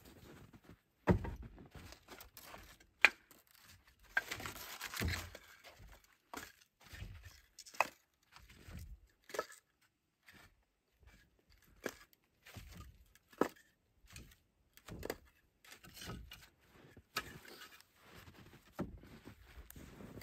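Split firewood clattering and knocking as logs are pulled off a stacked woodpile and gathered into an armload. The knocks are irregular, with a few sharp ones, and there is a stretch of rubbing and scraping wood. Footsteps come at the start and the end.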